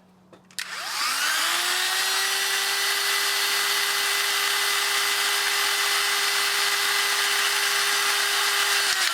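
Robo Crimp battery-powered hydraulic crimping tool's electric motor starting with a rising whine, then running steadily as the crimping jaws close, and stopping near the end.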